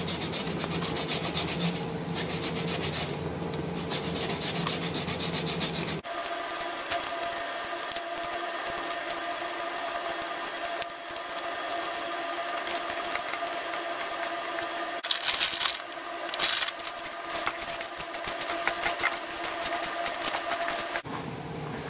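Lemon being zested on a fine hand grater over a stainless steel tray: rhythmic rasping strokes. After a cut about six seconds in, rosemary leaves are stripped from their stems by hand onto the tray, with rustling and scraping in short bursts.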